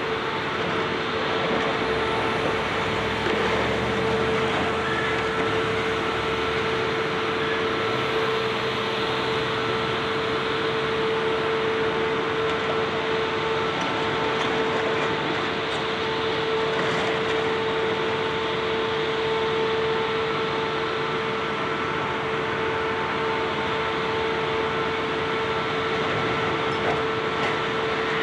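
Heavy demolition machinery running steadily, with the high-reach excavator among it: a constant whine held at one pitch over an even rushing machine noise, with no distinct crashes.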